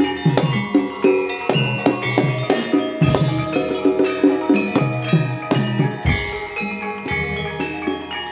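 Jaranan ensemble music: hand drums and struck gamelan metallophones playing a quick, busy rhythm, with a louder crash about three seconds in and again about six seconds in.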